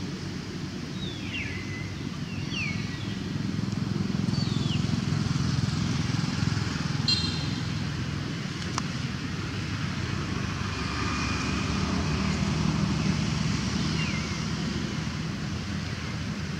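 Steady low rumble of distant motor traffic, with a few short, high, falling chirps scattered over it and a couple of faint clicks.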